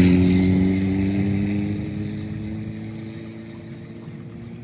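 A small engine passes by and moves away. Its pitch drops slowly and its sound fades steadily.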